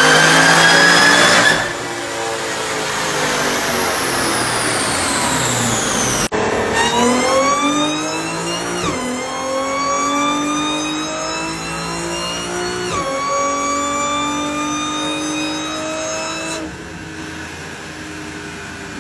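Supercharged car engines with a high supercharger whine. First the whine climbs with the revs, then glides slowly down as the car comes off the throttle; after a sudden cut another car accelerates hard, its whine rising and dropping sharply twice at upshifts before easing off near the end.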